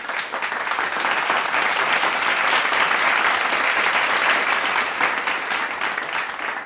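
Applause: many hands clapping together, building quickly and then tailing off near the end.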